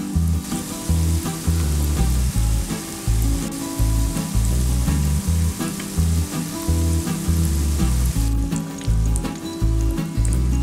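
Mashed-potato patties deep-frying in hot oil, sizzling steadily. About eight seconds in, the dense hiss gives way to separate crackles. Background music with a steady bass line plays underneath.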